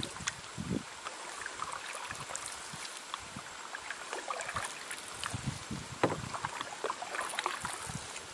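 Canoe being paddled on calm water: paddle strokes pulling through the water and dripping, with a few soft knocks.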